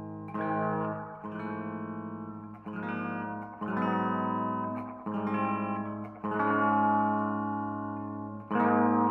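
Electric guitar, a 2012 Epiphone Les Paul Standard goldtop, played through a Marshall Origin 20 head and a Harley Benton 2x12 cabinet. About seven chords are struck one after another, each left to ring for a second or two before the next.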